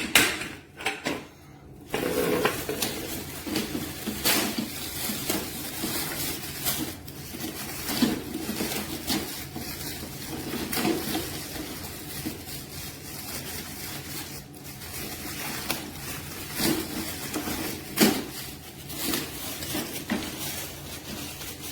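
Handling noise from unboxing a cordless lawn mower: irregular clatters and knocks of plastic mower parts with rustling packaging, a sharper knock about 18 seconds in.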